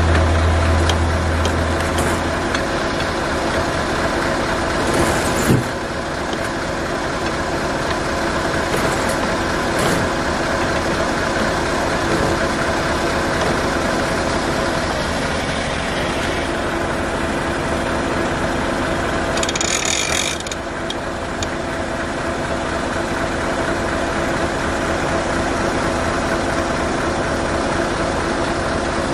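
Heavy timber truck's diesel engine idling steadily, with a few ratchet clicks as a load-strap winch on the log bunks is tightened. A short hiss comes about twenty seconds in.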